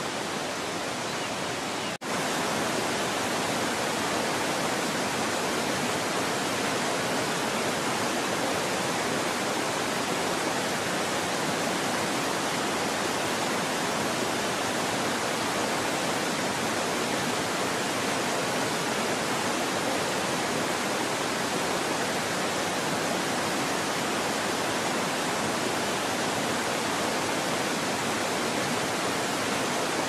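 Steady, even rushing noise like running water or hiss, with a brief dropout about two seconds in. No bird calls stand out above it.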